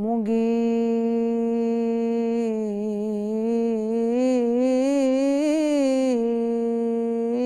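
A woman's solo voice singing Islamic religious inshad without instruments, holding one long note that ornaments with wavering turns of pitch in the middle, then settles back to a steady tone near the end.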